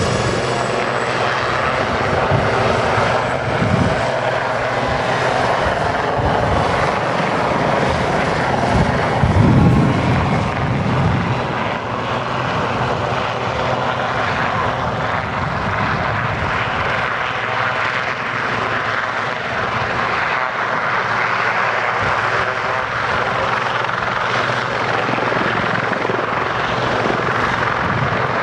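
A pair of helicopters flying a display, their rotor and turbine noise loud and continuous, with a low pulsing rumble that swells briefly about ten seconds in.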